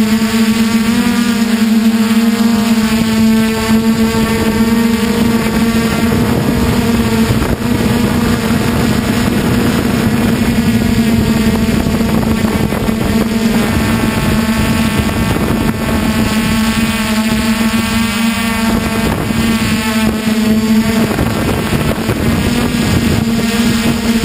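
DJI Flame Wheel F450 quadcopter's brushless motors and propellers buzzing in flight: a steady hum that shifts slightly in pitch, with wind noise on the microphone.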